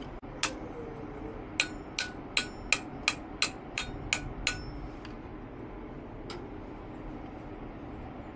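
Sharp metallic taps, about nine in quick succession at roughly three a second, each with a brief ring. A single tap comes just before them and another a couple of seconds after.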